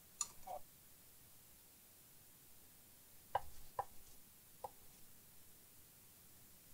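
A few faint light taps and clicks from a soldering iron and a small power connector being handled on a workbench. There are two near the start and three more spaced out from about three and a half to five seconds in, with quiet between.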